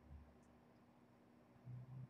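Near silence: faint room tone, with a soft low bump just after the start and a brief low sound near the end.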